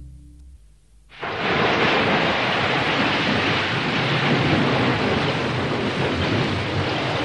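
Storm sound effect of heavy rain, wind and surf crashing, coming in suddenly about a second in and then holding steady.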